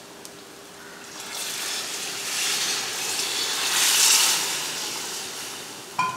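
Water poured from a steel vessel into a pressure cooker full of rice, splashing and gurgling as it pools, building to its loudest about four seconds in and then tailing off. A sharp metal clink with a short ring near the end.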